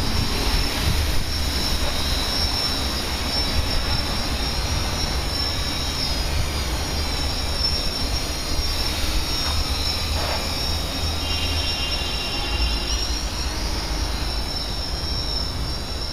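Hexacopter's six brushless motors and three-blade propellers in flight, a steady high whine over a low, unsteady rumble.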